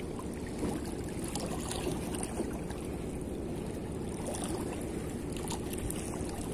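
Shallow harbour water lapping and trickling against shoreline rocks, with faint small splashes over a steady low rumble.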